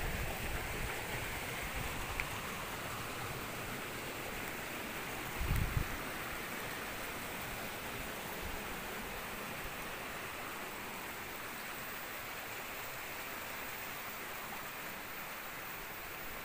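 Steady rush of a small stream of running water, easing slightly in level as it goes on, with a brief low bump about five and a half seconds in.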